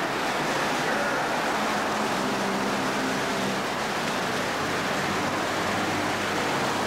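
Steady, dense din of a busy street with faint voices mixed in.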